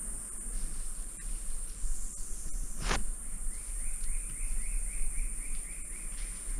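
Steady high-pitched drone of tropical forest insects, with one sharp knock about three seconds in and a quick run of about a dozen short chirps, roughly four a second, in the second half.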